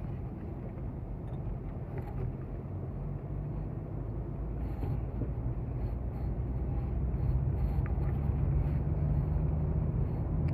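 Car engine and tyre noise on a snowy, icy road, heard from inside the cabin: a steady low rumble that grows gradually louder.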